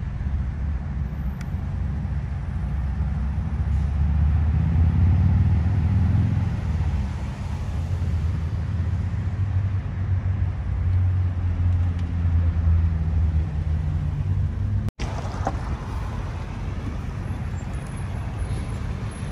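Idling heavy vehicle engines: a steady low rumble with some road-traffic noise. It drops out for an instant about fifteen seconds in and goes on with less rumble.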